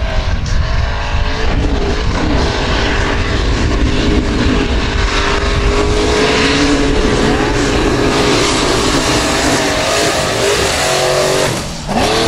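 Formula Offroad buggy's engine held at high revs, its pitch steady for a while and then rising and falling, as the buggy skims across a river with its tyres churning and throwing up water. Near the end the sound dips briefly and the engine comes back at a different pitch.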